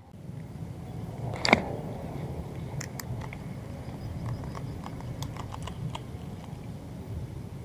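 A single sharp knock about one and a half seconds in, then a run of light, irregular clicks and ticks from handling a baitcasting reel, over a steady low background rumble.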